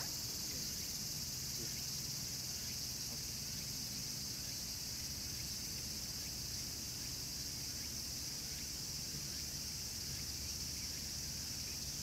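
Steady, high-pitched chorus of insects, shrilling without a break.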